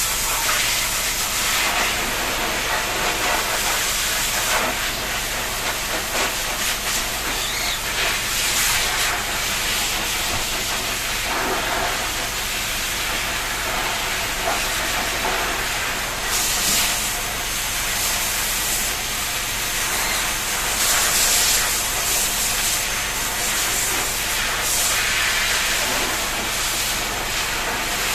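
Water spraying steadily from a shower, a continuous hiss that swells slightly now and then, over a faint low hum.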